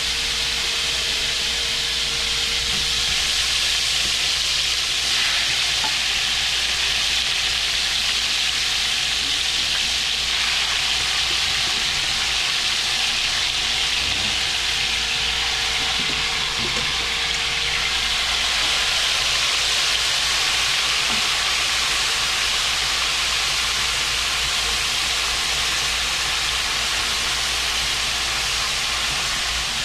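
Seasoned shrimp sizzling steadily as they fry in hot oil in a wide aluminium pot, stirred with a spoon near the end.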